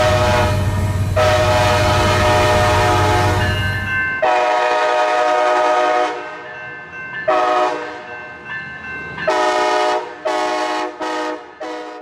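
Horn of an Amtrak Siemens Charger (ALC-42) locomotive, several notes sounding together as one chord. It gives long held blasts for the first six seconds, over a low rumble at first, then a run of shorter blasts.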